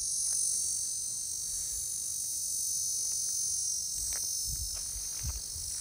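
A chorus of insects making a steady, high-pitched buzzing trill that comes from all around. Low rumble on the microphone and a few faint clicks come in during the second half.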